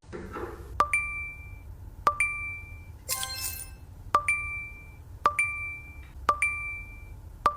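A small metal object struck about once a second, seven sharp dings in all, each ringing briefly at a high, clear pitch. A short rattly burst comes in about three seconds in.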